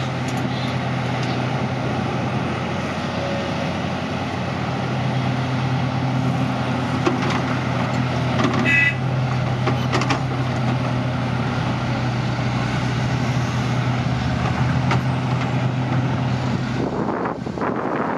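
Diesel engines of a Hitachi Zaxis 520 hydraulic excavator and a Komatsu HM400 articulated dump truck running steadily as the excavator loads the truck, with a few knocks of earth and stones landing in the dump body about halfway through. The steady engine hum drops away near the end.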